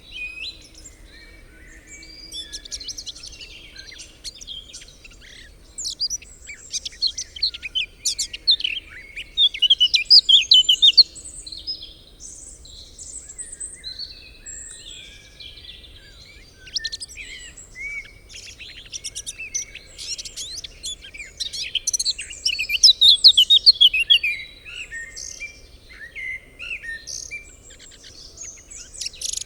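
Evening woodland birdsong: several birds singing over one another, with a blackcap among them. The song comes in bursts of fast, warbling phrases, loudest about a third of the way in and again past the two-thirds mark.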